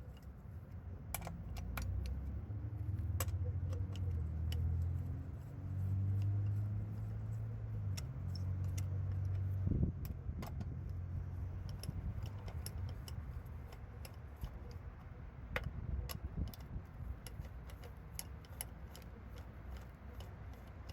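Light metallic clinks and rattles of bolts and tools being handled, scattered all through, with a low rumble during the first half.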